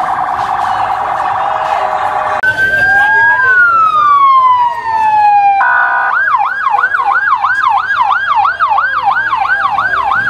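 Police siren cycling through its modes: a rapid warble, then a long falling wail about two and a half seconds in, then a fast yelp repeating about three times a second from about six seconds in.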